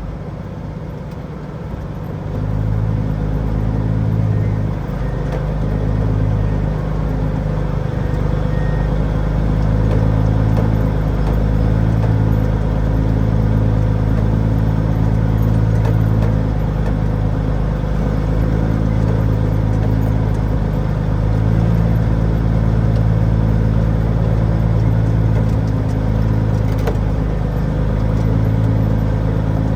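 Truck's diesel engine running steadily with a low, pulsing drone, picking up about two seconds in as the truck tries to drive out of the job site.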